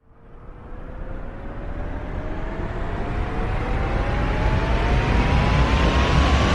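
An engine fading in from silence and growing steadily louder, with a whine that climbs slowly and evenly in pitch over a low rumble.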